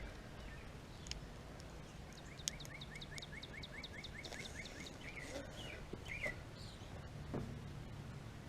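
A songbird singing a rapid series of short, falling notes, about five a second for two to three seconds, beginning about two seconds in, followed by a few separate chirps, over faint steady background noise.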